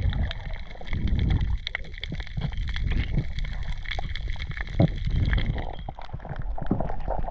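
Underwater sound as heard by a camera moving through the water: a low, churning rumble of water with many scattered sharp clicks and crackles.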